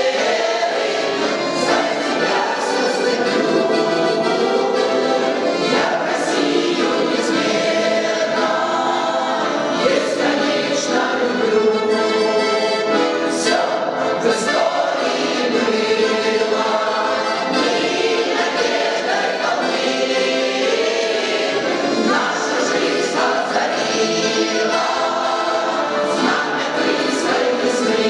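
A choir singing a song with instrumental accompaniment, with long held notes.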